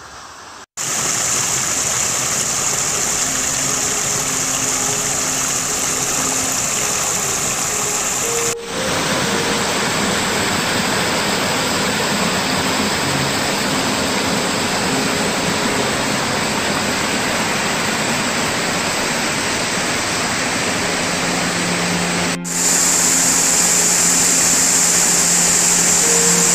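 Rushing water of a small creek cascade spilling over rock ledges: a loud, steady rush with two brief breaks at cuts, about 9 and 22 seconds in.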